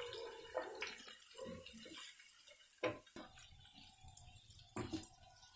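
Faint sounds of boiled potato pieces tipped into a frying pan and then stirred with a spatula, with a few scattered light knocks of the spatula against the pan.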